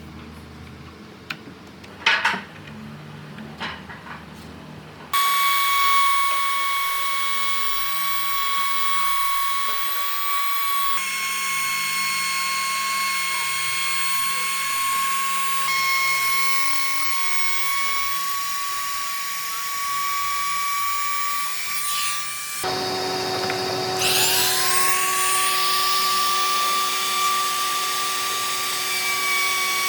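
A few knocks, then an electric power tool starts and runs with a steady high-pitched whine. Near the end it stops briefly and spins up again with a rising whine.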